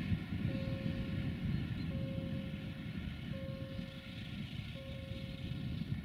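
Sulzer diesel engine of a Romanian 060-DA (LDE2100) diesel-electric locomotive running with a steady low rumble as it approaches, pulling a train of tank wagons. A faint tone comes back about every one and a half seconds.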